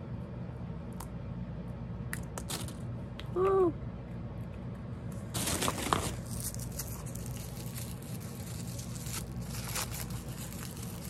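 Small toy packaging being handled and opened: scattered clicks and rustling, a brief high note a little past three seconds in, and a short burst of tearing of a small wrapper about five seconds in, over a steady low hum.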